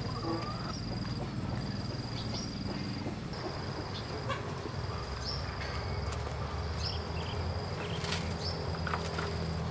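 An insect calling outdoors: a high, steady trill repeated in phrases about a second long, each opening with a short rising note. A single sharp click sounds about eight seconds in.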